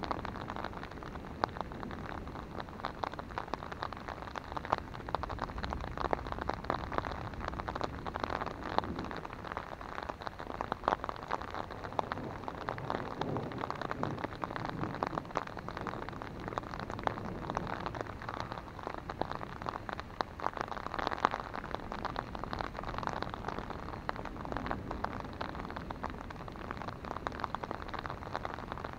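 Steady rain falling on an umbrella held over the microphone: a dense, even run of drop hits, some sharper than others.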